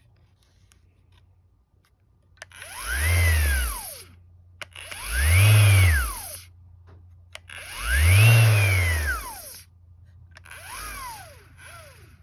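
MAXXT 5-inch random orbital sander motor pulsing: it spins up and winds down four times in a row, each a rising then falling whine about two seconds long, and the last is weaker. This is the brand-new sander's fault: it starts and runs in pulses on its own, even with the switch let off.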